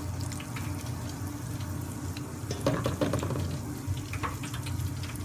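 A battered chicken nugget sizzling and bubbling in the hot oil of a deep fryer, over a steady low hum.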